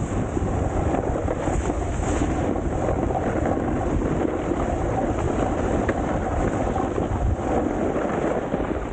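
Wind buffeting the microphone over a steady rushing and scraping from a snowboard riding hard, icy snow.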